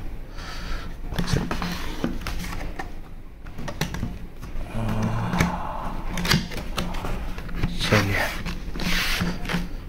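A small knife cutting the packing tape on a cardboard shipping box, with scraping and rustling of the cardboard and scattered clicks and knocks as the box is handled.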